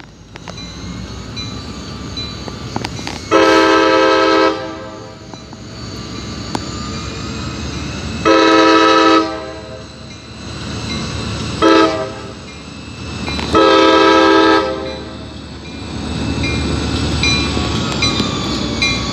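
CSX diesel freight locomotive's air horn sounding the grade-crossing signal: two long blasts, one short, then a final long one, each a loud multi-note chord. The crossing warning bell rings steadily throughout, and near the end the locomotive's engine rumble rises as it reaches the crossing.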